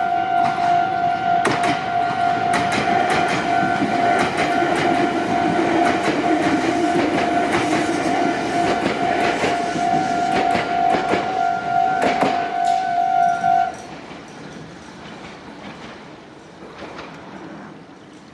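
Japanese level-crossing warning bell ringing in a steady, rapid kan-kan while a Meitetsu train passes, its wheels clacking over the rail joints. The bell cuts off about 14 seconds in, and the train's running sound fades away after it.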